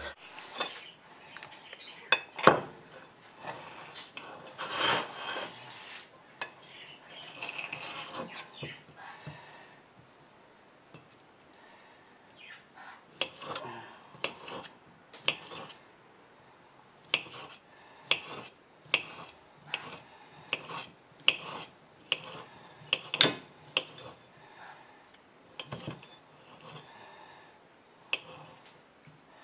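Paring knife slicing smoked sausages on a ceramic plate, the blade tapping sharply against the plate with each cut, at about two taps a second through the second half.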